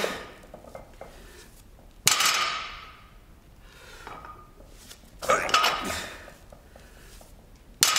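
Loaded barbell clanking three times, about two seconds in, a little after five seconds and near the end, as the bar is pulled explosively and set back down. The plates and sleeves ring briefly each time.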